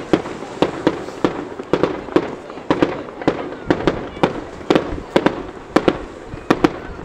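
Firework display: aerial shells bursting in a quick, uneven string of sharp bangs, about two or three a second.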